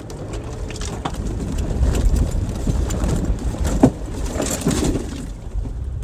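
Land Rover LR4 lurching through mud and water on a rocky trail, heard from inside the cabin: a low rumble of the tyres with crunches and knocks, and one sharp knock about four seconds in.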